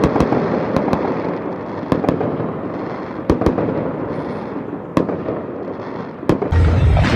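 Fireworks going off: a dense rumble and crackle of many shots, with a sharp bang every second or two. Near the end a loud, deep booming sound cuts in.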